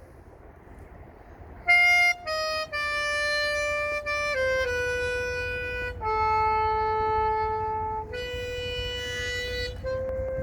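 Alto saxophone playing an unaccompanied melody. After a pause of about a second and a half come a few short notes, then long held notes stepping downward, over a steady low rumble.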